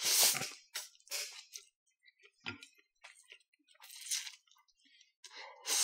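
A loud slurp of a mouthful of fried yakisoba noodles, then chewing in short, irregular wet smacks, with another slurp near the end.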